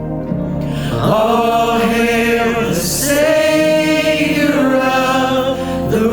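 Choir singing long, held notes of a worship song, with a steady musical accompaniment beneath.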